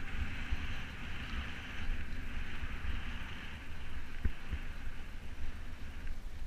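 Mountain bike descending a dirt singletrack: wind rumbling on the microphone and the bike jolting over bumps, with a steady hiss of tyres rolling over dirt and dry leaves that fades near the end.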